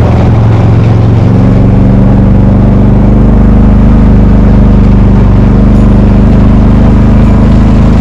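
Kubota utility vehicle's engine running loud and steady as it drives along a dirt track, its pitch shifting slightly about a second in and again around five seconds in.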